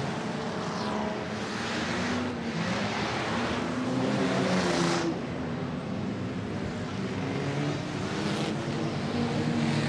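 Engines of a large pack of banger racing cars running together as they round a bend, many engine notes overlapping and rising and falling in pitch.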